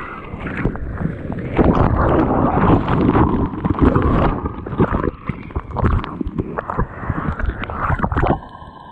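Water churning and splashing around a mouth-mounted GoPro as it goes through and under a wave, a dense crackling, gurgling rush that drops to a quieter wash near the end as the camera comes back up.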